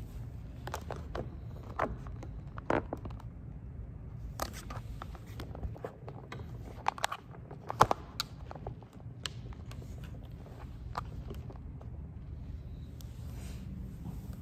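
Tarot cards being handled and shuffled: scattered light clicks, taps and scrapes, the loudest a little past the middle, over a low steady room hum.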